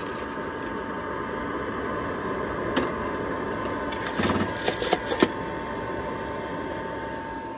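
ROEST sample roaster running steadily with a thin whine while a just-dropped batch of roasted coffee beans cools in its metal tray. A short cluster of bean rattles and clicks comes a little past the middle.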